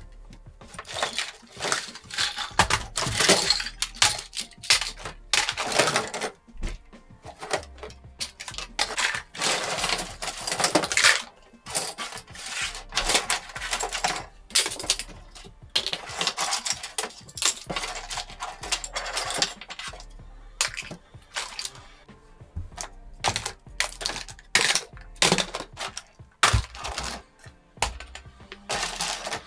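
Small hard objects clattering and clinking against each other in quick, irregular runs, handled and dropped over and over, with short pauses between runs.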